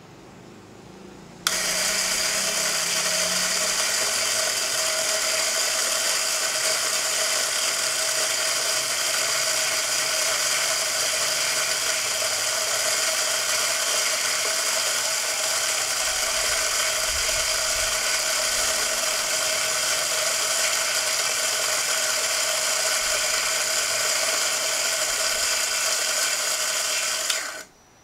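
Electric flat burr coffee grinder switching on suddenly and grinding a hopper of coffee beans for about 26 seconds: a steady motor whine over the noise of beans being ground, cutting off near the end.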